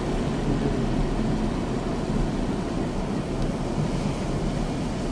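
Steady wind and road noise inside a moving car with the side window lowered, tyres running on a wet road.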